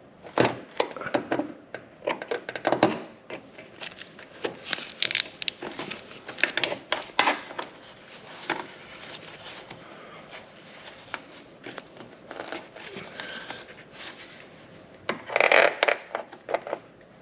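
Hand tools and metal hinge parts clinking, knocking and scraping in irregular bursts while a car door hinge is being worked on, with a louder cluster of knocks near the end.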